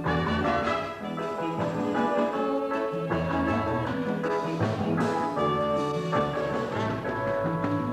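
Live calypso band playing the instrumental introduction to a song: sustained melodic chords over a walking bass line, with no singing yet.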